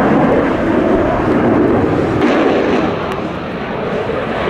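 Blue Angels F/A-18 jets passing overhead, a loud, steady jet-engine rumble that eases a little about three seconds in.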